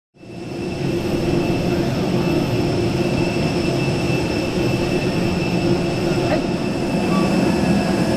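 Parked jet aircraft on an airport apron with its engine running: a loud, steady rushing rumble with a constant high whine over it, coming in suddenly right at the start.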